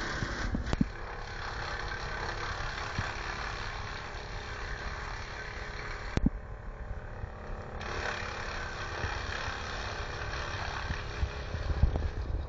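Vermeer BC1000 wood chipper running steadily. A few sharp knocks stand out, the loudest near the end as branches are dragged to the infeed.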